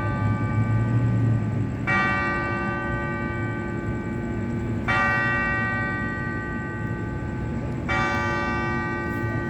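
A single cathedral bell tolling the hour at 10 p.m., struck once about every three seconds at the same pitch. Each stroke rings on until the next; three strokes fall in this stretch, with the ring of an earlier stroke at the start.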